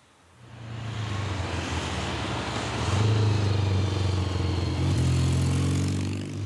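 Vintage motorcycle engine running as the bike approaches. It fades in within the first second and is loudest from about three seconds in.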